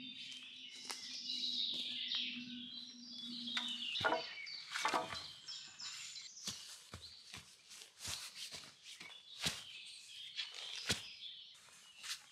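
Birds chirping over a faint low hum, then, about four seconds in, a run of irregular sharp snaps and rustles of the kind sticks and leaf litter make when handled or stepped on.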